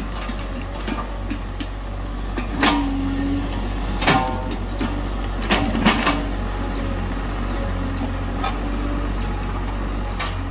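IHI IS-30GX mini excavator's engine running steadily while it digs, with about five sharp knocks from the bucket and arm working the soil, the loudest about four seconds in.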